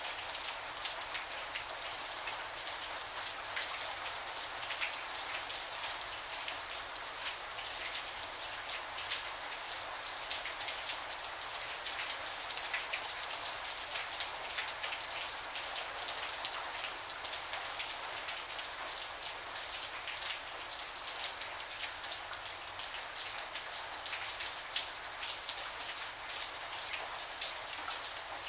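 Steady rain, a dense patter of separate drops over an even hiss.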